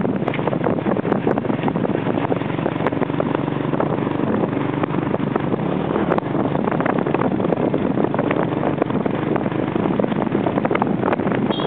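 Motorbike engine running steadily under way, heard from the pillion seat with wind rushing over the microphone and scattered small clicks and knocks.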